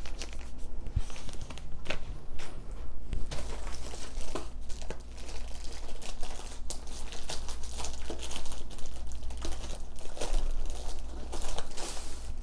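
Thin clear plastic sleeve crinkling as a rolled diamond-painting canvas is handled and pulled out of it: a continuous run of irregular crackles and rustles.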